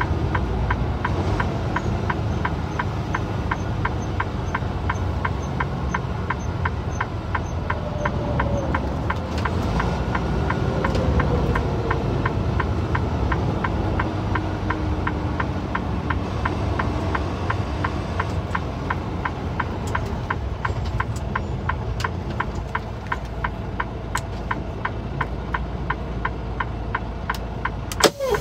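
Semi-truck cab noise while cruising on a highway: a steady running rumble of engine and road, with a regular ticking about three times a second. A single sharp click near the end.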